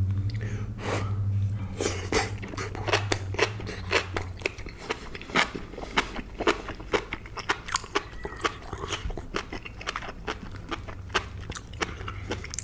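Close-miked chewing of soft food, with many sharp wet mouth clicks and smacks several times a second. A low steady hum runs under it for the first few seconds.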